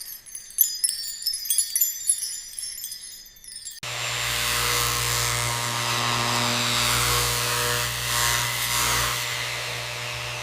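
High-pitched metallic tinkling and clinking, then about four seconds in a sudden change to a steady mechanical hum with a hiss over it.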